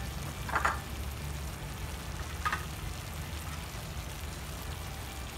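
Chicken pieces and potatoes sizzling faintly in a frying pan over a low steady hum, with two brief clinks or scrapes about half a second and two and a half seconds in.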